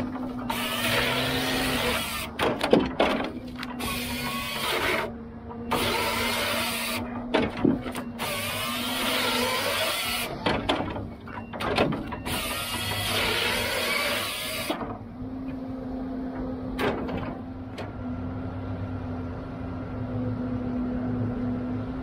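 Rotobec hydraulic grapple saw's chain cutting through logs, a loud rasping noise broken by several abrupt gaps, over the log loader's engine and a steady hum. About fifteen seconds in the sawing stops and the loader's engine and hum carry on.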